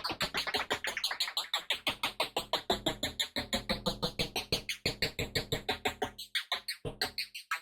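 Synthesized electronic sound effect: a fast, even stream of short chirping pulses, several a second, with brief gaps a little past six seconds and near the end.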